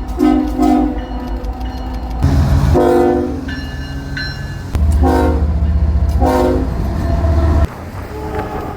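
Multi-chime train horn sounding a series of blasts, each a chord of several tones: two short ones at the start, then several longer ones, over the low rumble of the train.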